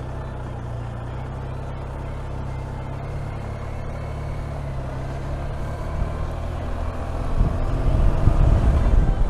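Motorcycle engine running under way, with road noise. Steady at first, it grows louder and rougher over the last two or three seconds.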